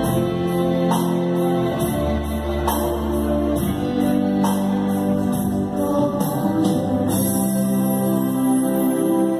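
Electronic keyboard playing a slow instrumental passage of a Catholic meditation song: held chords over a bass line that moves every second or two, with a steady light percussion beat.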